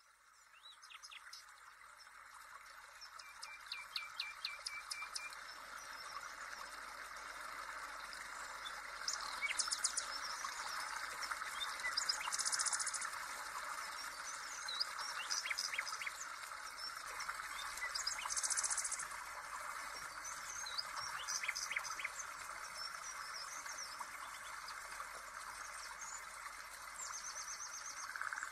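Songbirds chirping and trilling, with short calls and quick rattling trills scattered throughout, over a steady even hiss.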